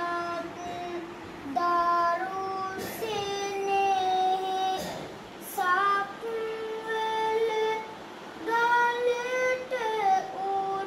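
A boy novice monk singing kavi bana, Sinhala Buddhist verse, unaccompanied, in long held notes that slide from one pitch to the next, pausing for breath every few seconds.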